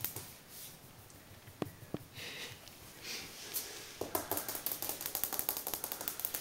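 Light clicking and tapping, a few scattered clicks at first, then a rapid run of small ticks from about four seconds in.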